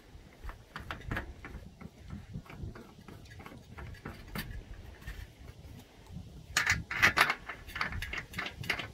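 Irregular small metal clicks and rattles as an eye bolt is fitted and turned into the diving-board ladder plate hardware, with a denser, louder run of clicking about seven seconds in.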